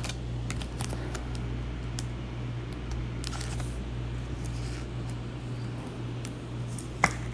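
Trading cards and plastic card holders being handled: scattered faint clicks and rustles, with one sharper click about seven seconds in, over a steady low electrical hum.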